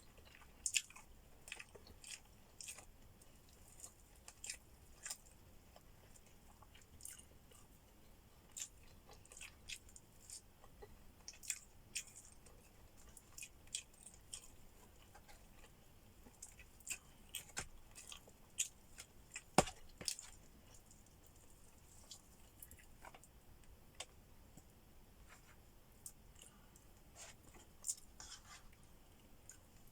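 Close-up eating sounds of a person chewing food: a run of small irregular mouth clicks and smacks, with one sharper click about two-thirds of the way through.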